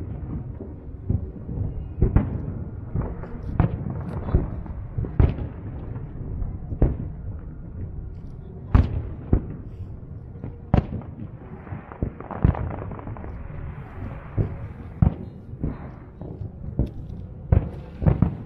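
Aerial firework shells bursting: a dozen or so sharp booms at irregular intervals, with a continuous low rumble between them.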